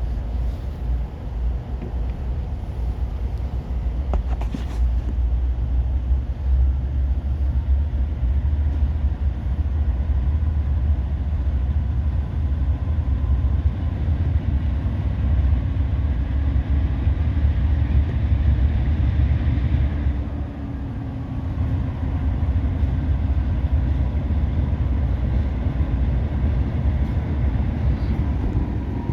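Pan Am Railways diesel locomotive running as the train moves through, a deep steady rumble.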